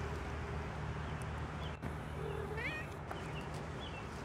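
A cat gives one short meow about two and a half seconds in, over a steady low hum in the background.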